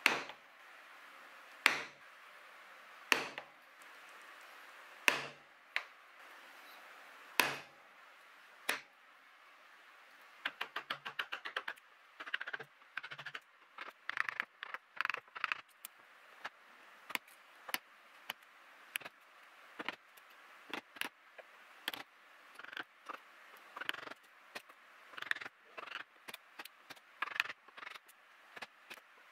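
A bench chisel driven into Taiwan cypress with hard, separate blows about every one and a half to two seconds, chopping the dovetail waste down at the scribed line. About ten seconds in comes a quick run of light rapid taps, then lighter, irregular blows two or three a second as the waste is chopped out.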